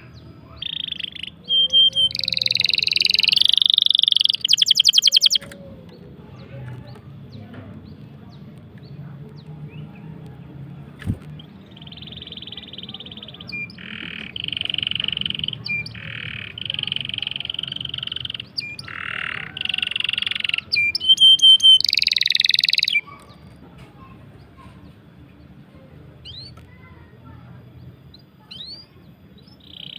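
Songbird singing loud, high chirping phrases with long rolled trills, in two bouts with a quieter lull near the end.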